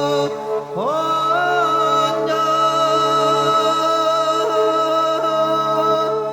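Background music: a voice holding long sustained notes over a steady low drone, sliding up to a new held note about a second in.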